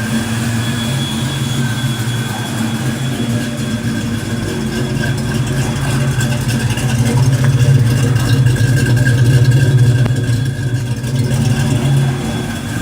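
Fox Body Mustang engine idling steadily, swelling a little louder partway through and easing back near the end. Its computer has just been reset and, in the owners' words, is probably still learning.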